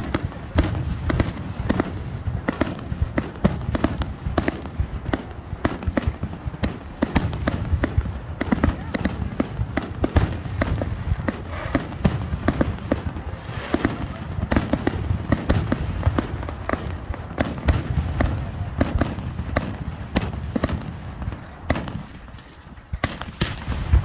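Fireworks display: aerial shells bursting in rapid succession, many sharp bangs a second, with a brief lull near the end.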